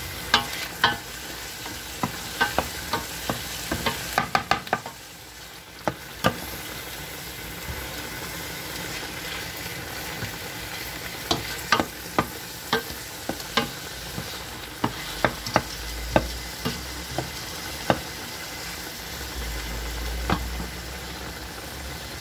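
Chicken, onion and tomato frying in olive oil in a stainless steel pot with a steady sizzle, while a wooden spoon stirs them and knocks against the pot in irregular clicks. The clicks come in clusters at the start and again in the middle, and fade out near the end as the spoon is left in the pot.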